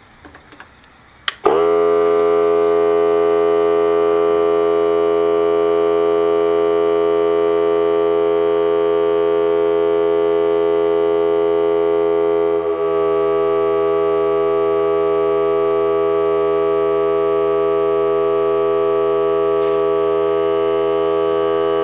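Ryobi 18V cordless 1-gallon air compressor (P739) switching on with a click and spinning up about a second and a half in, then running steadily with a loud, even whine while inflating a car tire through its hose. About halfway through there is a brief dip and a slight change in tone.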